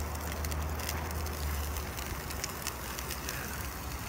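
Wind buffeting the microphone as a low rumble that eases about two seconds in. Under it, the crinkle of a plastic bag and scattered small crackles as sliced celery is shaken into a cast-iron Dutch oven.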